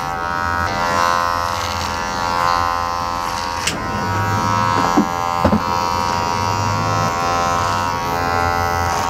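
Electric hair clipper running with a steady buzz while trimming a beard, with one sharp click about three and a half seconds in.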